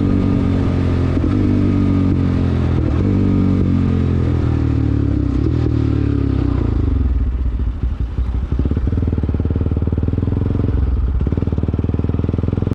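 Bajaj Pulsar NS200's single-cylinder engine running loud through an R9 aftermarket racing exhaust. Its revs fall steadily over the first six or seven seconds, then it runs low and steady.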